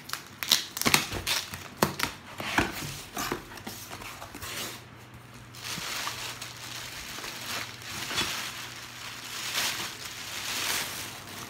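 Parcel packaging being crinkled and crumpled as a package is unwrapped by hand. Sharp crackles come thick in the first few seconds, then give way to longer rustling stretches.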